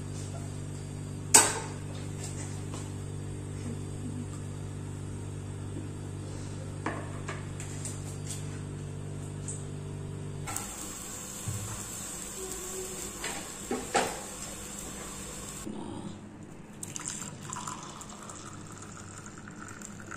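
An egg frying on a flat iron tawa: a steady electrical hum with a few sharp knocks as the egg is cracked and handled, then a steady hiss of frying from about ten seconds in, with clinks of utensils.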